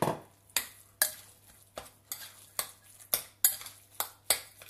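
Metal spoon stirring meat stuffing in a glass mixing bowl, knocking against the glass in a run of sharp clinks about two a second.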